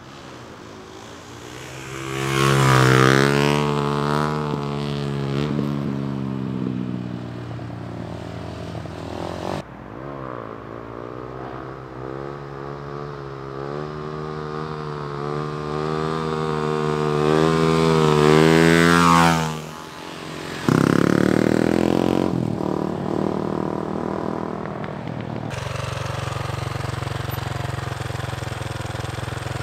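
Dirt bike engines revving and riding past in several spliced clips: the pitch climbs and falls with the throttle and the passes, and the sound breaks off abruptly a few times. In the last few seconds an engine runs at a steadier, lower note.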